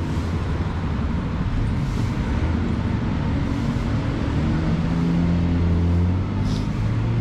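Street traffic with motor vehicles running close by. In the second half a low, steady engine note stands out.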